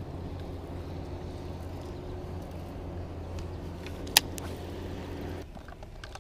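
Boat motor humming steadily, cutting off suddenly about five and a half seconds in, with one sharp click about four seconds in.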